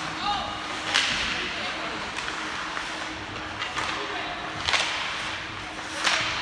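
Three sharp cracks of ice hockey sticks striking the puck, one about a second in and two more near the end, over the steady hum of the rink.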